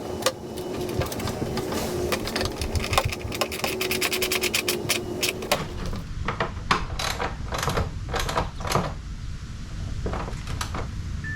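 Socket ratchet clicking as a bolt's nylon locking nut is run down: fast continuous clicking over a steady hum for the first half, then slower separate strokes of a few clicks each.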